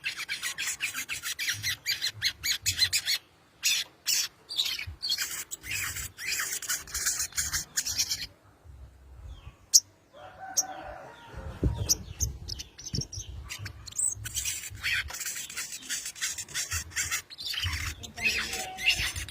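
A sogon (spiderhunter) calling in fast runs of sharp, high chattering notes, several bursts broken by short pauses. A single loud click comes about ten seconds in.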